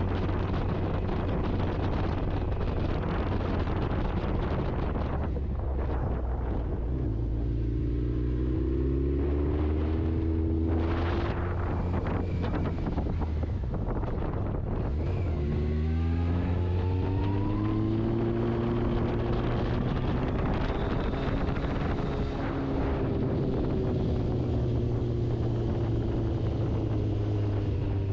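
Motorcycle engine running under way, its note rising and falling several times, with wind rushing over the microphone.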